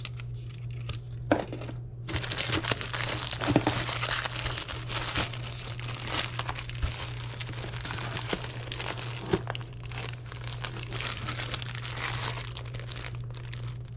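Crinkling and rustling of crinkle-cut paper shred packing filler and a shiny plastic bag as hands dig through a cardboard box, dense and continuous from about two seconds in, with a few sharp clicks. A steady low hum runs underneath.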